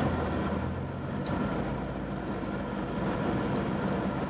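Car engine and road noise running steadily, heard from inside the cabin while cruising, with a brief click about a second in.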